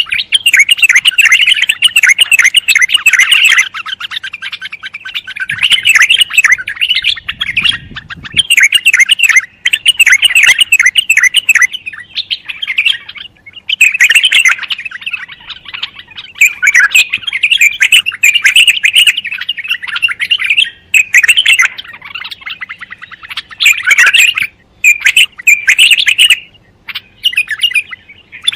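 White-eared bulbul singing: long runs of rapid chirps and warbled phrases, broken by several short pauses.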